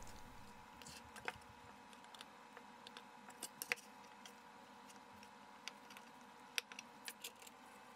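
Near silence: faint room tone with a light steady hum and a dozen or so faint, scattered ticks and clicks.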